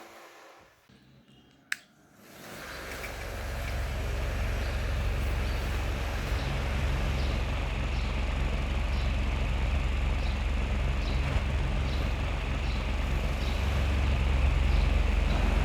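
A click, then a small mini ceiling fan spinning up over about two seconds and running steadily, with a low rumble of moving air and a faint tick repeating a little more than once a second.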